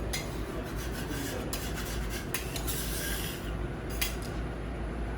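Metal spatulas scraping on a hot teppanyaki iron griddle in short strokes, over a steady low hum.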